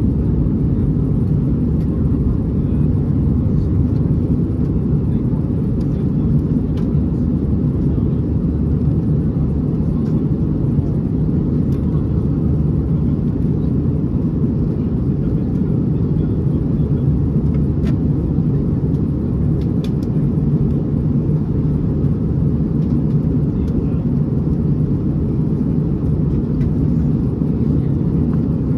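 Steady low rumble of an Airbus A321's engines and airflow heard from inside the passenger cabin, unchanging throughout, with a few faint clicks.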